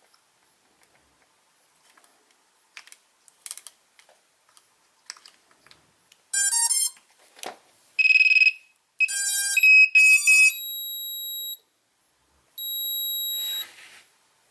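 Electronic beeps at several pitches, after a few light clicks. There is a quick run of stepped tones, a short high beep, another quick run, and then two longer steady tones near the end.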